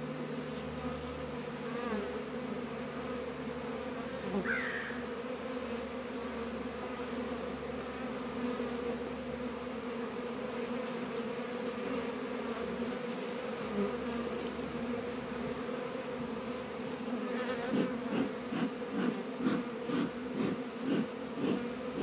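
Steady buzzing of many honey bees flying around an opened hive. Near the end, a run of quick, even puffs, about two or three a second, from a bee smoker's bellows being pumped.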